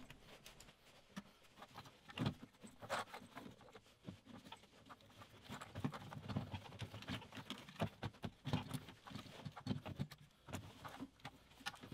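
Faint, irregular clicks, taps and light knocks of hands pulling an air intake pipe and connectors off around a throttle body, more frequent in the second half.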